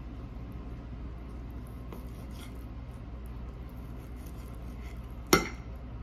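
Knife sawing through grilled steak with a fork holding it, the blade rasping faintly against the dinner plate, then one sharp clink of cutlery striking the plate near the end.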